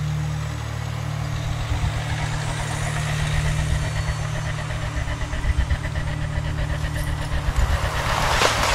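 Diesel engine of a Hitachi demolition excavator running steadily while its grapple tears at a brick and stone wall, with crunching and scraping of masonry. A loud crash of falling rubble comes near the end.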